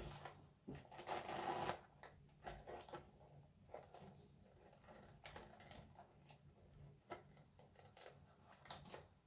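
Faint, intermittent rustling and crinkling of gift-wrapping paper and ribbon as the ribbon on a small wrapped present is untied. The longest rustle comes about a second in, followed by short scattered rustles and small clicks.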